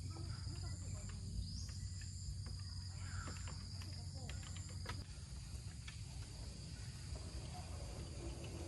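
Insects trilling steadily in high-pitched tones, with scattered light clicks and a low hum that drops away about five seconds in.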